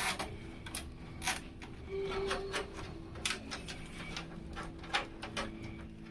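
Irregular light clicks and knocks of PC case parts being handled during assembly, over a faint steady hum.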